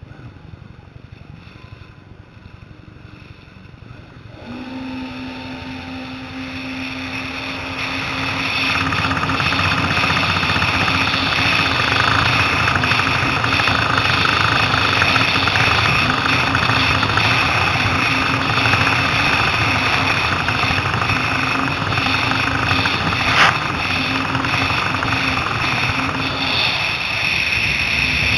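Jet ski engine opening up about four seconds in and then running steadily at speed, with rushing water and wind noise growing louder over the next few seconds. A single short knock comes near the end.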